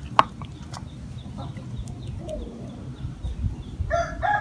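A single sharp knock just after the start, then a rooster begins crowing near the end, one long call.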